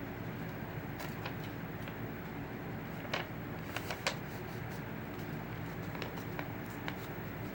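Sheet of paper being handled, folded and creased: scattered short crinkles and taps, the sharpest about three and four seconds in, over a steady low background hum.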